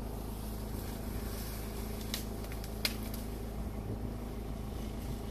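Vehicle engine idling steadily, heard from inside the car, with a couple of brief clicks around two and three seconds in.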